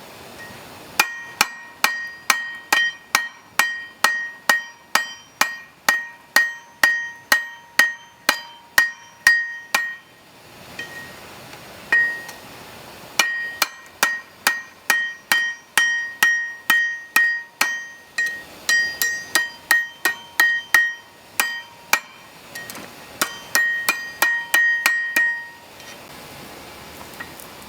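Hand hammer forging a hot steel grass-whip rod on a railroad tie-plate anvil: sharp blows about two a second, each ringing metallically. The blows come in three runs, broken by short pauses about ten seconds in and again about twenty-one seconds in.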